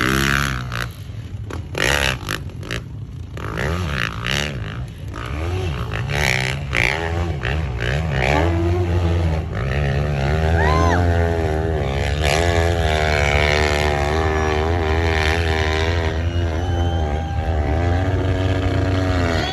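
Hill-climb motorcycle engine revving hard, its pitch rising and falling with the throttle: short sharp blips in the first few seconds, then a longer sustained high-revving run from about eight seconds in.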